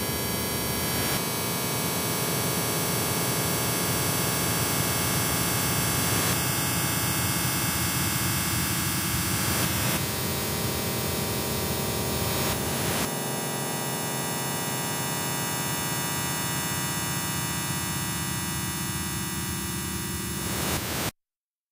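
Harsh industrial noise music: a dense wall of static-like noise threaded with steady hums and tones. It shifts abruptly in texture a couple of times, then cuts off suddenly to silence near the end.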